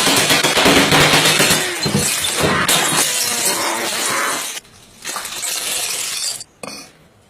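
A harsh, rough crashing and crunching noise, like something breaking, that stops about four and a half seconds in, comes back briefly and ends about a second before the end.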